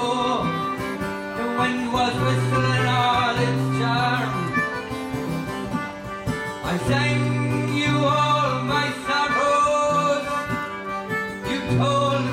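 Live folk song: a man singing over a strummed acoustic guitar, with a concertina playing long held chords.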